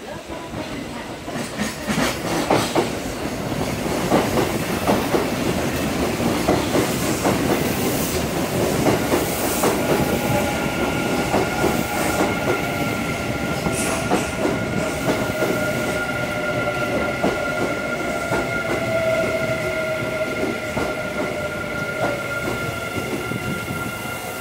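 Electric train pulling into a station platform: its wheels clatter over rail joints and points, then steady whining tones set in as it slows, one of them slowly falling in pitch as the train comes to a stop.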